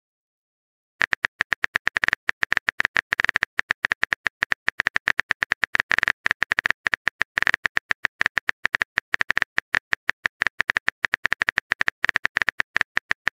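Simulated smartphone keyboard typing clicks: a rapid run of short key-tap clicks, several a second, starting about a second in, as a chat message is typed out.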